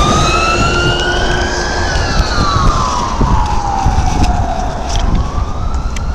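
Ambulance siren in a slow wail: the pitch rises for about two seconds, falls for about three, then starts rising again. A low rumble and a few knocks sound on the microphone underneath.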